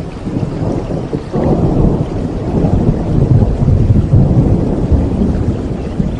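Thunderstorm ambience: steady rain with a deep roll of thunder that swells about a second in and rumbles on.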